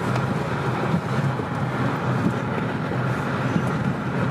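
Steady road noise heard inside a moving car's cabin: the low rumble of the car and its tyres on a wet road, even throughout.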